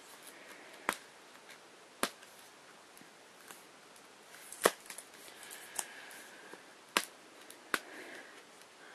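Mystery-mini blind-box packaging being handled and opened by hand: a few scattered sharp clicks and taps, about five in all, over a faint hiss.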